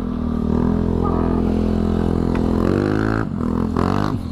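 Yamaha RX-King's two-stroke single-cylinder engine running under way at steady revs, then revving up and dropping off twice near the end.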